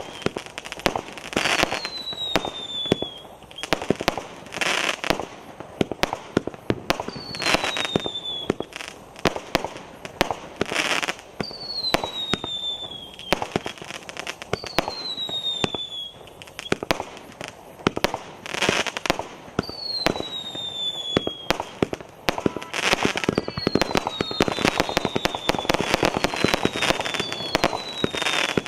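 A 105-shot fireworks cake (0.6-inch and 0.8-inch tubes) firing shot after shot: sharp launch thumps and small bursts with crackling between. Every couple of seconds a whistle sounds, falling in pitch.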